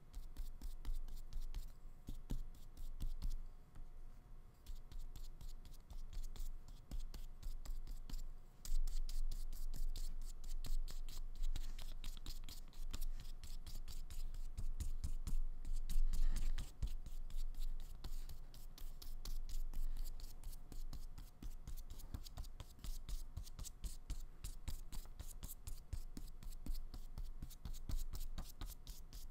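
A flat paintbrush stroking acrylic paint onto paper: a continuous run of quick, scratchy brush strokes.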